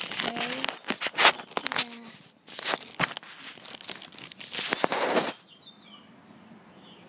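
Handling noise from a phone camera being carried and set down on the ground: rustling, scraping and knocks against the microphone, with a louder scrape about five seconds in.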